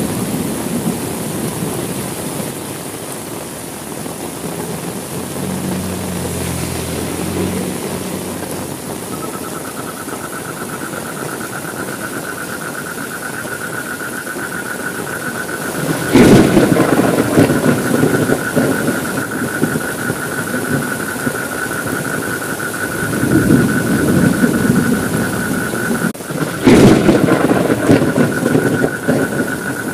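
Steady heavy rain, with two sharp thunder cracks, about halfway through and near the end, each followed by a louder spell of rumbling. A steady high whine runs on through the rain from about a third of the way in.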